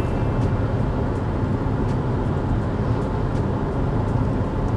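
Steady engine and tyre noise inside a BMW car's cabin, cruising at about 80 km/h: an even low rumble that neither rises nor falls.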